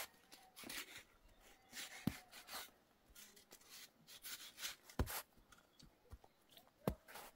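Scattered small knocks and clicks with soft rustling, the sound of things being handled at close range.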